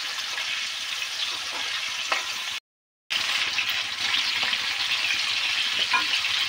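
Tomatoes and whole spices sizzling in hot oil in a metal kadai, stirred and mashed with a wooden spatula in the first part. The sound drops out completely for about half a second, then the steady sizzling resumes.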